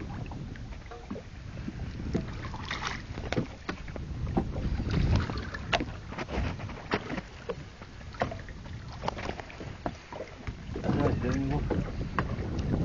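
Wind rumbling on the microphone aboard a fishing boat at sea, with scattered sharp knocks and clatter, and a brief voice about 11 seconds in.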